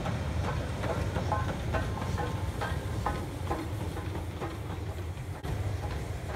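Passenger train hauled by a Battle of Britain class steam locomotive rolling past on the rails: a steady low rumble, with a run of short, high-pitched metallic squeals about twice a second during the first half.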